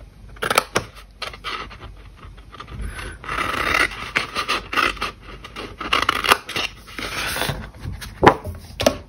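Scissors cutting thick white cardstock in short irregular snips, with paper rustling as the sheet is turned and handled. Two sharp snips near the end are the loudest.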